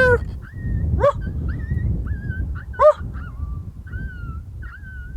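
Coyote-style barks: two short, loud pitched barks about one and three seconds in, with faint wavering yips and howls between them. A sharp suppressed rifle shot cracks right at the end.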